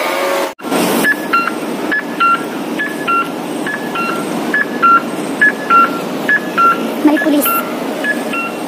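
Pedestrian crossing signal sounding a repeating electronic pattern: short, loud beeps alternating between two pitches, in pairs about every 0.7 s, over steady wind and street noise. The sound cuts out briefly about half a second in.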